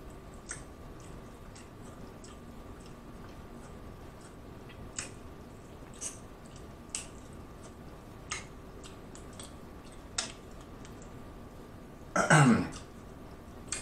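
Close-miked eating of king crab meat: soft wet mouth clicks and smacks at irregular intervals, about one every second or so. Near the end comes a loud, short throat noise with a falling pitch, like a throat clear.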